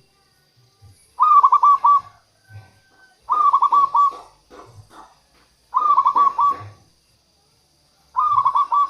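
Zebra dove (perkutut) cooing: four song phrases, each a quick run of fluty notes, about two seconds apart.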